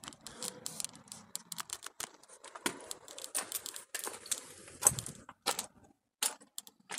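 Camera handling noise: irregular light clicks, rattles and rustling, with a sharper knock about five seconds in.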